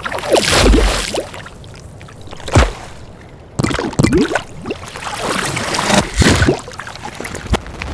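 A string of designed water sound effects played one after another: splashing rushes and pours with bubbly, gurgling glides, and a short low thump about two and a half seconds in. A low water ambience runs underneath.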